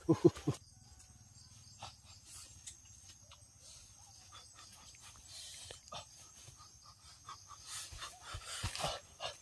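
Foliage rustling and twigs cracking underfoot as a person walks through jungle undergrowth, in scattered short clicks that grow busier and louder near the end. A brief loud burst of noise comes right at the start.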